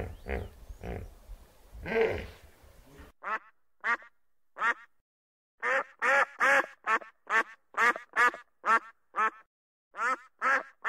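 Animal calls. For about three seconds there are coarse grunting calls over a low rumble. After an abrupt change about three seconds in, a clear run of short, sharp calls follows, repeated in quick bursts of several at a time.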